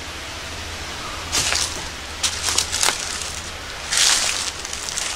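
Footsteps rustling through dry leaves and forest floor litter, a few steps in short bursts, the longest about four seconds in.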